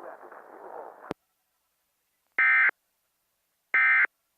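Emergency Alert System SAME end-of-message data bursts: two identical short, buzzy bursts of digital tone about a second and a half apart, marking the end of the test alert. Before them, faint background audio cuts off with a click about a second in.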